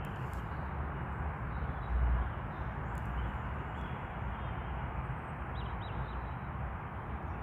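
Steady rush of flowing stream water, with wind buffeting the microphone and a stronger gust about two seconds in. A few faint bird chirps sound near the end.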